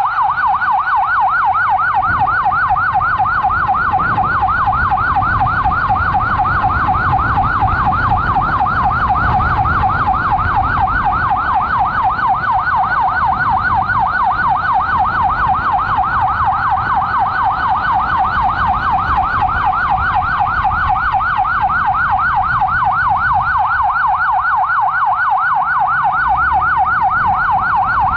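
Emergency vehicle's electronic siren in fast yelp mode, its pitch sweeping up over and over several times a second without a break, over a low vehicle rumble.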